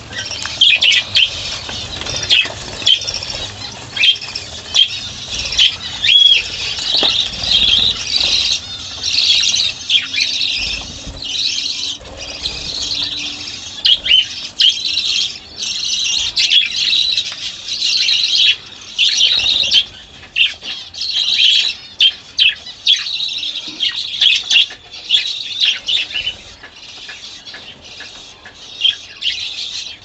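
A flock of budgerigars chirping and chattering without pause, many quick high calls tumbling over one another, with a brief flutter of wings now and then.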